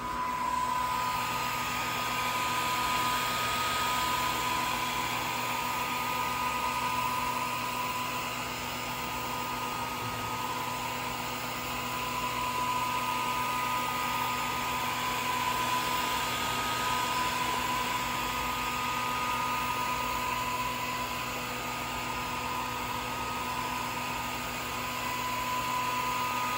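Swiitol 18 W diode laser engraver running while it burns grid lines, with its air assist giving a steady hiss. A whine runs under the hiss, swelling and fading every several seconds.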